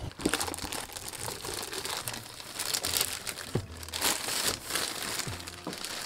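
Clear plastic protective film crinkling and crackling as it is pulled off a boxed metal award plaque.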